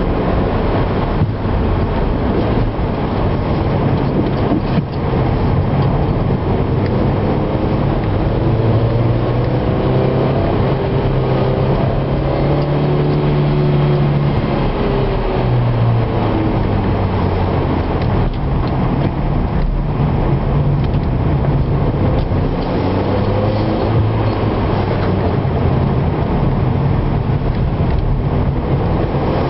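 Car engine heard from inside the cabin while lapping a circuit, its pitch rising and falling as it accelerates, changes gear and slows for corners, over road and tyre noise.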